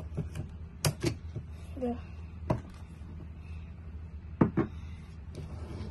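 A handful of irregular clicks and knocks as a Bosch GSR 18V-EC Flexi Click drill is handled and its click-on chuck attachment is taken off, over a low steady hum.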